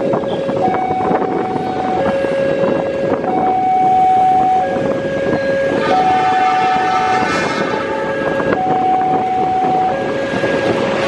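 Level-crossing warning alarm alternating between two tones, each held about a second and a quarter, over the steady noise of an approaching diesel-hauled passenger train. About six seconds in, the locomotive's horn sounds once for about a second and a half.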